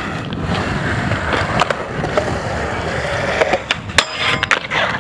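Skateboard wheels rolling over wet concrete, then about four seconds in the trucks strike a metal handrail with a sharp clank and a ringing scrape as the board grinds along it, with a second knock shortly after.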